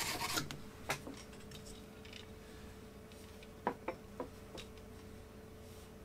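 Hands handling tools on a workbench: a short rubbing noise at the start, a light click about a second in, then a few small clicks and taps between three and a half and four and a half seconds, over a faint steady hum.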